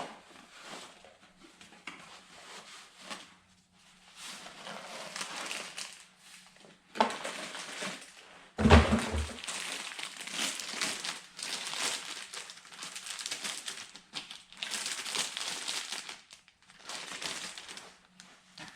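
Repeated bursts of crinkling and rustling, like wrapping material being handled, with one heavy thump about nine seconds in.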